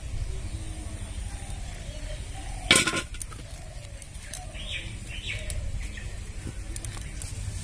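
Birds calling softly, a string of short falling calls over a low rumble, with one sharp knock about three seconds in that is the loudest sound.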